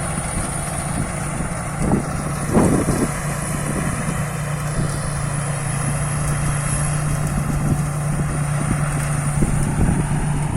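A rice combine harvester's engine running steadily, a constant low drone, with a brief louder sound about two and a half seconds in.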